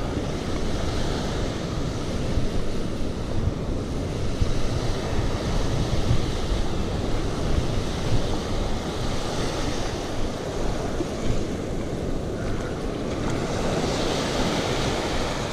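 Ocean surf breaking and washing up the sand, with wind buffeting the microphone; a wave's wash swells louder near the end.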